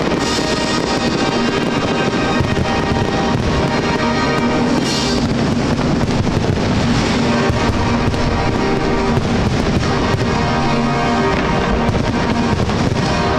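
Music playing loudly and continuously during a fireworks display, mixed with the pops and crackle of bursting shells, with a brighter crackling burst about five seconds in.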